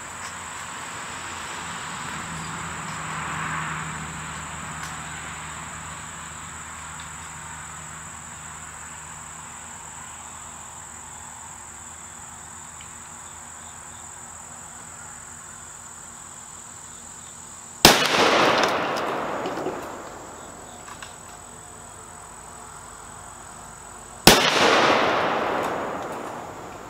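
Two .270 Winchester rifle shots about six seconds apart, each sharp crack trailing off in a long rolling echo; the second sets off an explosive charge at the metal target, which bursts into a cloud of smoke. Crickets chirp steadily throughout.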